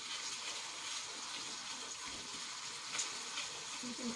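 Steady hiss of sambal tumis ikan bilis (chili paste with anchovies) frying in a wok, with a light spatula knock about three seconds in.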